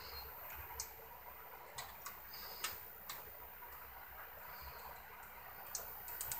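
Faint, scattered clicks and light ticking as a plastic cable tie and the wires are handled inside a cassette deck's sheet-metal chassis, about half a dozen irregular clicks over a few seconds.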